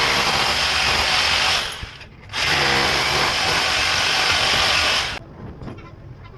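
Power drill running in two long bursts with a short pause between, the motor spinning back up at the start of the second, typical of drilling holes in a wall to mount an air-conditioner outdoor-unit bracket.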